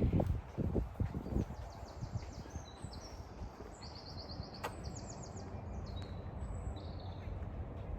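Small birds singing high, rapid trilled phrases over a steady low background rumble, with a few low thumps in the first second and a half.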